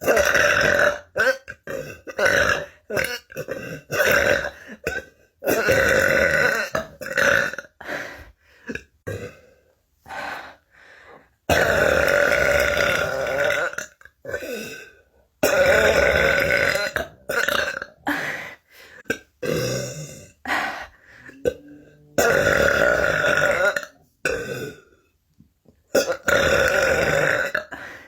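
A person burping over and over: a fast run of short burps mixed with several long, drawn-out ones of about two seconds each.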